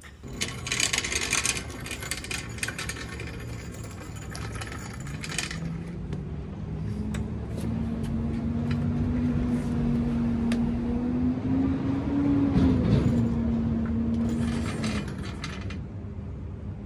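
Steel skid plate clattering and rattling as it is handled and set on the jack for the first few seconds. Then a steady engine hum rises in pitch and holds for several seconds, with more metal rattling near the end.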